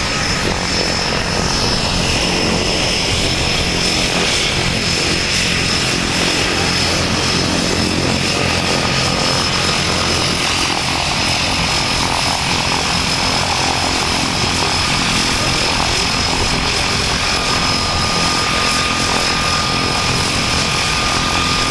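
A de Havilland Canada DHC-6 Twin Otter's two Pratt & Whitney PT6A turboprop engines running at taxi power: a steady propeller drone with a high, even turbine whine over it.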